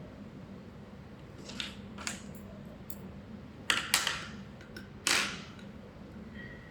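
YAG laser welding machine in use: a handful of sharp, irregularly spaced snaps, the last one a little longer, over the machine's steady low hum.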